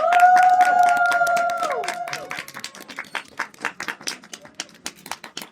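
Audience clapping, with several long high cheers from the crowd in the first two seconds that slide down and stop together. The clapping then thins out into scattered claps.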